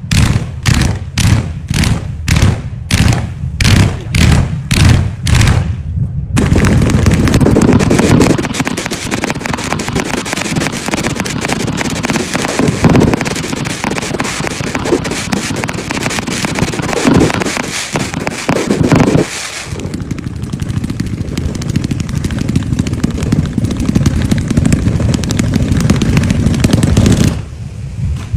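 Fireworks going off. For the first six seconds a rapid run of sharp bangs comes a little over two a second. Then a dense, continuous crackling rumble of many shots follows, with heavier booms mixed in, and it dips briefly near the end.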